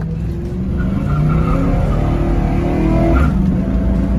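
Vehicle engine accelerating, heard from inside the cabin over steady road rumble. The engine note climbs, falls back about three seconds in as at a gear change, then climbs again.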